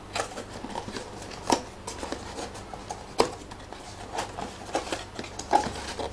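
Cardboard phone box being opened and handled: scattered light taps, scrapes and rustles of the card, with sharper knocks about one and a half and three seconds in.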